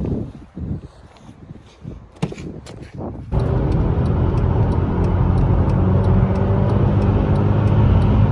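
Scattered knocks and rustling, then about three seconds in a MAN truck's diesel engine cuts in abruptly and runs steadily, with a light regular tick about three times a second on top.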